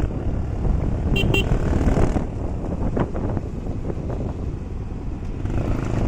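Motorcycle engine running while riding a rough dirt road, with rumble from the road. Just after a second in, a horn gives two short beeps.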